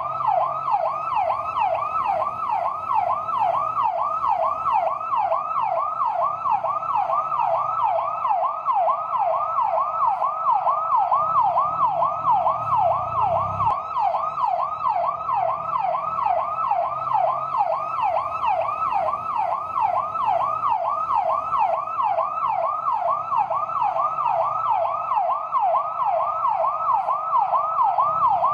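Fire truck's electronic yelp siren, its pitch sweeping rapidly and evenly up and down about three times a second without a break, with a faint low rumble underneath.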